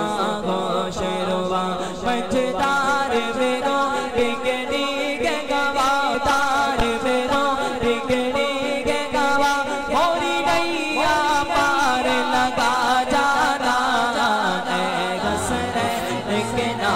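A man's voice singing a naat without instruments, drawn out in long ornamented, wavering phrases over a low held drone.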